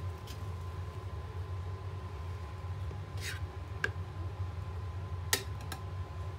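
A metal spatula dabbing frosting onto a cardboard cake board: a short scrape about three seconds in, then two sharp taps, the louder one about five seconds in, over a steady low hum.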